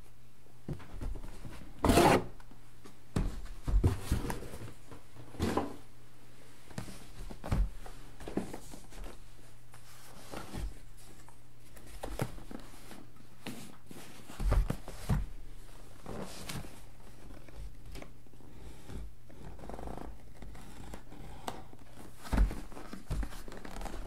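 Handling noise from unboxing: packaging and drone accessories being rustled, moved and set down, with scattered knocks and clicks. The loudest knocks come a couple of seconds in and about midway.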